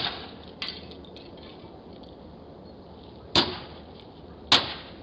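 Hard blows struck against a car's body, sharp sudden impacts: one at the start, a couple of faint knocks just after, then two more hard strikes about a second apart near the end.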